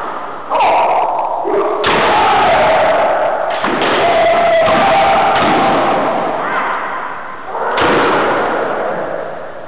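Kendo sparring: long kiai shouts from several fencers, starting abruptly several times and overlapping, mixed with thuds of bamboo shinai strikes and stamping feet on the wooden floor.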